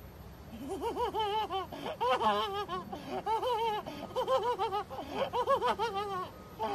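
A boy's high-pitched manic laughter in rapid repeated bursts, a performed hysterical laugh that starts about half a second in and keeps going.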